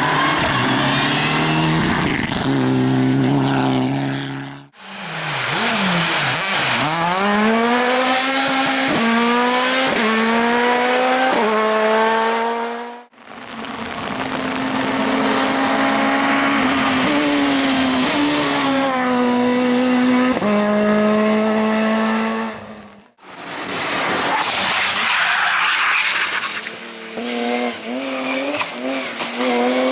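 Competition car engines at full throttle, the pitch climbing and then dropping with each gear change as the cars accelerate. Separate clips are cut together, with brief dropouts about 5, 13 and 23 seconds in.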